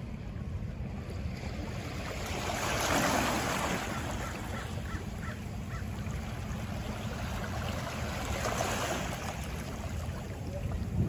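Ocean surf over a steady low rumble, with two waves swelling and washing out, one about two seconds in and another about eight seconds in.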